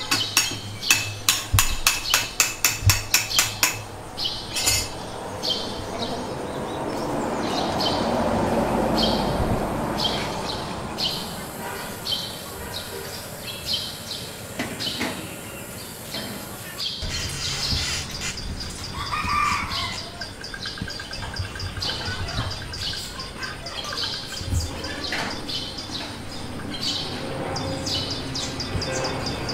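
Small birds chirping in the background throughout. A rapid run of sharp clicks, about three a second, fills the first few seconds, and a longer swell of rushing noise comes near the middle.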